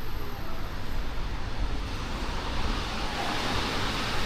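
Steady road traffic noise with a low rumble and a hiss that swells a little in the second half.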